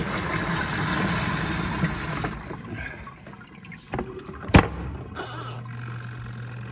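Wet laundry being handled in the spin tub of a twin-tub washing machine, then a sharp knock about four and a half seconds in as the lid shuts, followed by a steady low hum of the spin-dryer motor starting.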